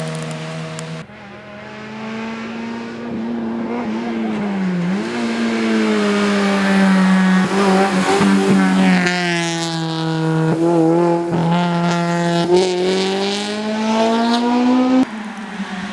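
Honda Civic rally car's engine running hard at high revs on a stage. Its pitch dips briefly about five seconds in, then climbs steadily under sustained acceleration. The sound changes abruptly about a second in and again near the end.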